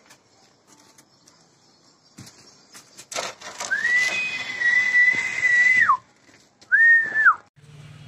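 Whistling: one long, high note held level for about two seconds that slides down at the end, then a short second note that also drops away.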